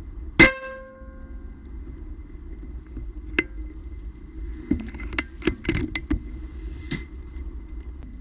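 Air Arms S410 PCP air rifle fired once about half a second in: a sharp crack with a brief metallic ring. A few seconds later comes a series of metallic clicks, typical of the side lever being worked to cock the rifle and load the next pellet.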